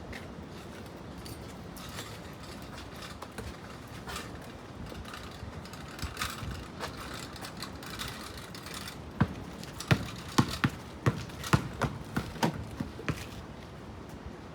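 A quick, uneven run of sharp clicks and taps, about a dozen in four seconds, starting about two-thirds of the way in, over a steady low background hiss.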